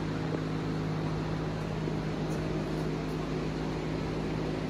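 A steady machine hum with several held low tones.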